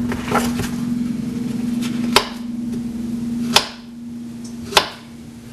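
Sharp knocks of a knife striking a cutting board while half a banana is cut, four or five spaced a second or so apart. Under them runs a steady hum that cuts off with one of the knocks about three and a half seconds in.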